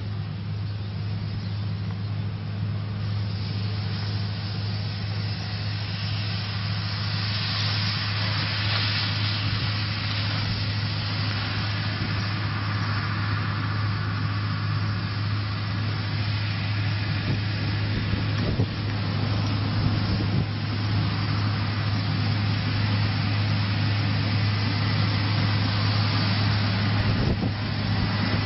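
Heavy diesel farm machinery running steadily during a corn harvest, a deep steady drone over a dense mechanical rush, growing louder over the first several seconds as it comes closer, with a few brief knocks near the middle and near the end.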